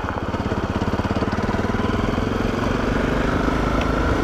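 Honda CRF250L's single-cylinder four-stroke engine running at low revs in an even pulse as the bike rolls along a gravel track, getting a little louder as it picks up speed.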